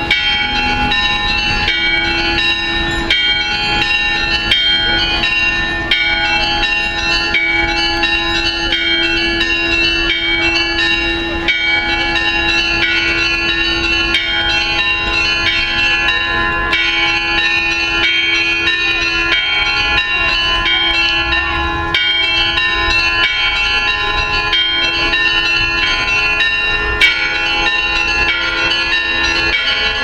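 Russian Orthodox church bells rung in a perezvon: small high bells struck in quick repeating patterns over a steady lower bell tone.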